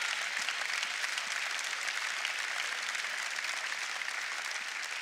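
Church congregation applauding, a steady spread of clapping that eases slightly near the end.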